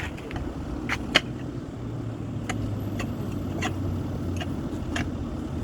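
A steady low motor or engine hum that grows stronger about two seconds in, with scattered sharp clicks and knocks over it.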